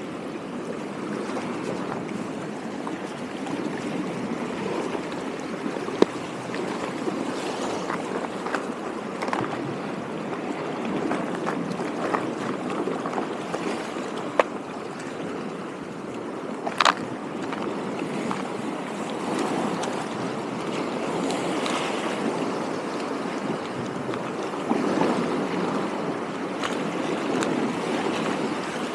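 Small lake waves lapping at the shore, a steady wash of water, with a few isolated sharp clicks.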